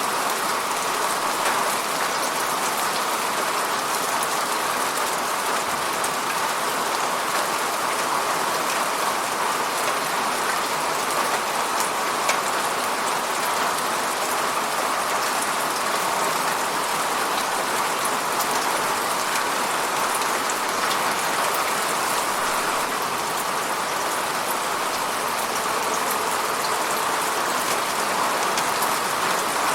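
Steady rain on a window, a dense even patter of drops with fine ticks from individual drops.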